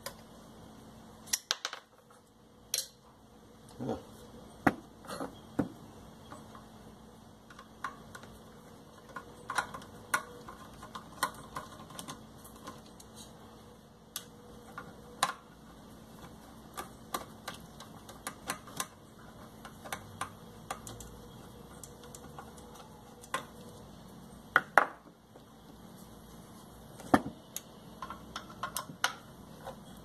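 Irregular small clicks, taps and clinks of hand tools and small metal parts against a vacuum cleaner motor as it is taken apart.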